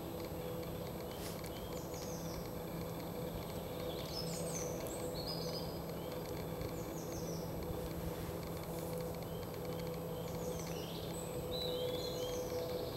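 Small songbirds chirping in short phrases that fall in pitch, with a steady low hum underneath.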